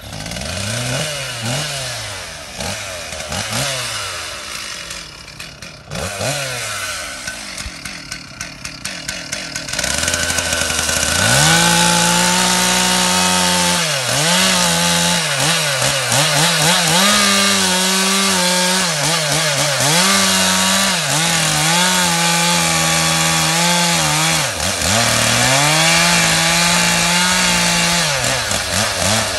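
Two-stroke chainsaw felling a conifer. For the first ten seconds or so the engine is revved up and down, then it runs at full throttle cutting into the base of the trunk, its pitch sagging under the load a few times and picking up again.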